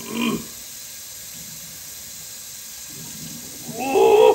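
Kitchen faucet running a steady stream of water into the spout of a stainless-steel kettle, filling it. A brief hum-like vocal sound comes at the very start and a louder one near the end.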